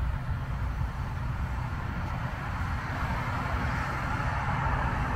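Loram RG-401 rail grinder train running along the track: a steady low diesel engine rumble under a rushing hiss from its grinding stones working the rail. The hiss grows louder a little past halfway as the train draws near.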